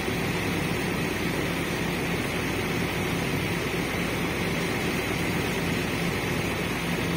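Diesel excavator engine idling steadily: a constant low hum with no revving or change.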